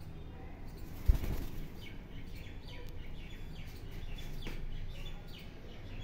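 Alexandrine parakeet flapping its wings close to the microphone in one brief burst about a second in, followed by faint small scratchy sounds.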